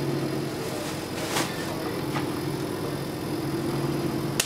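A steady motor hum over a noisy background, with a few light clicks or knocks, the sharpest near the end.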